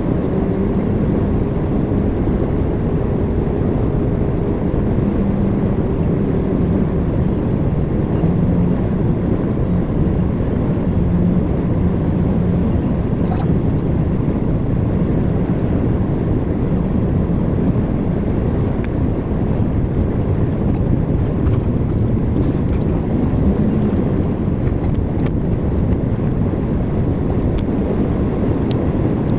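Truck driving on the highway: a steady low drone of engine and road noise with a faint even hum from the engine.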